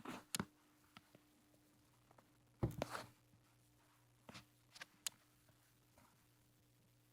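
A few scattered light clicks and knocks from hands working the 1957 Toyota Marvel De Luxe sewing machine, over a faint steady hum; the machine is not sewing.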